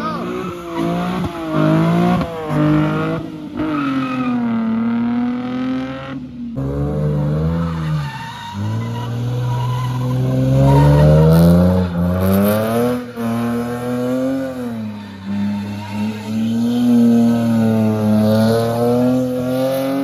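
Car engine revving hard, its pitch climbing and falling over and over with brief drops as the throttle is lifted, while the tires squeal and skid as the car drifts.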